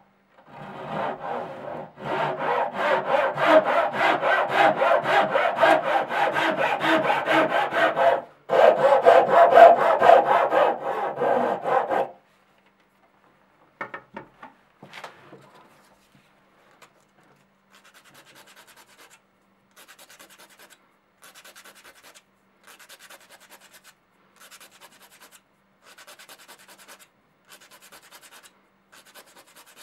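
Thin-bladed hand saw cutting through a wooden branch in quick strokes, with a brief pause about eight seconds in, sawing off a disc for a button. After a few scrapes, faint slow rubbing strokes follow, about one every second and a half, as the small cut wooden disc is smoothed by hand.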